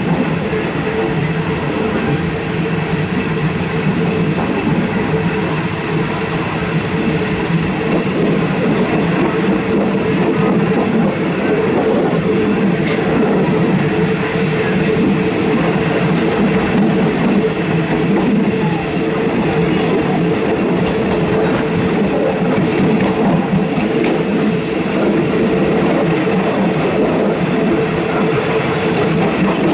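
Rapid passenger train's steady running noise: a constant engine hum with rail noise, holding an even level throughout.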